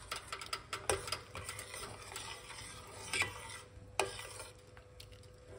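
Metal spoon stirring lemon peel, ginger and turmeric tea in a stainless steel saucepan, scraping and clinking against the pan, with a few sharper knocks about one, three and four seconds in.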